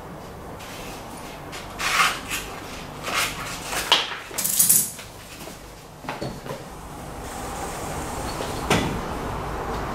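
Handling noises: a run of sharp scrapes and rustles of tape rolls and plastic being picked up and moved, a few light knocks, then a single thud near the end, over a steady background that grows louder in the second half.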